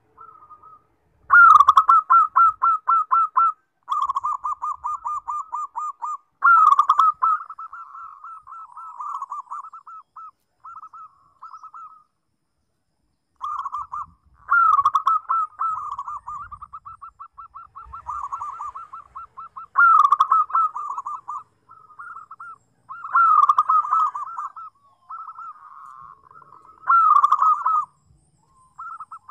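Zebra dove (perkutut) cooing: phrases of rapid staccato coos, each starting loud and trailing off, repeated every few seconds with short pauses between.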